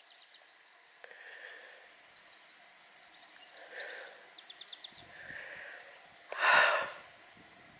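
A hiker breathing, with soft breaths and then one loud sigh about six and a half seconds in. Two short runs of faint, rapid, high chirping come near the start and about four seconds in.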